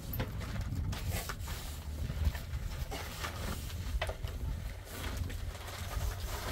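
Slim wooden rolling pin rolling and tapping thin flatbread dough on a wooden board, with scattered short knocks and the rustle of cloth being handled, over a low steady rumble.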